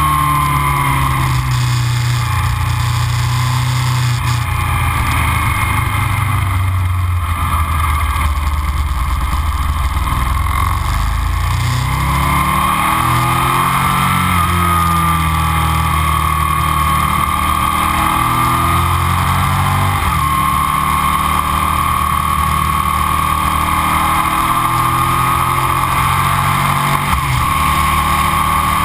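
Aprilia RSV 1000's V-twin engine with aftermarket Arrow silencers running under way. The engine note drops off, then climbs again about halfway through, with short breaks later on that fit gear changes. The onboard microphone adds a crackle.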